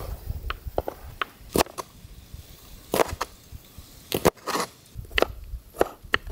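Food being cut or broken by hand: more than a dozen crisp snaps and crunches, spaced unevenly.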